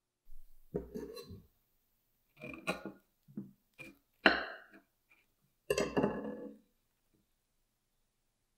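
Table knife cutting through a thick slice of toasted milk bread (shokupan), the crisp crust crunching in about six short bursts, the loudest about four seconds in.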